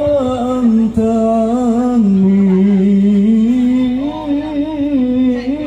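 A man's voice chanting through a microphone in one long, slow melodic line, holding notes and bending between them, as in an Islamic religious recitation.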